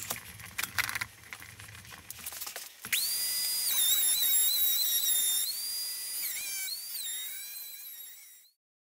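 Table-mounted wood router starting up with a high whine about three seconds in, its pitch dipping and recovering as the bit cuts the edge of a round wooden board fed by hand. Before it starts there are a few clicks over a low hum, and the sound cuts off abruptly near the end.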